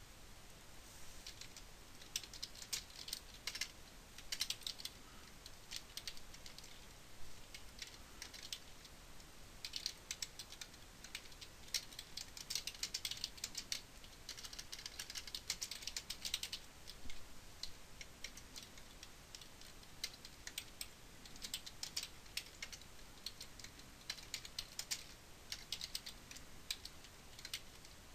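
Computer keyboard being typed on in several runs of rapid keystrokes, with short pauses between the runs.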